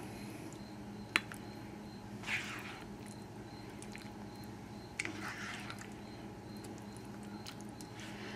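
Faint kitchen handling: a utensil clicks once against cookware about a second in, followed by a few soft scrapes as food is spooned from a skillet into baking dishes, over a low steady hum.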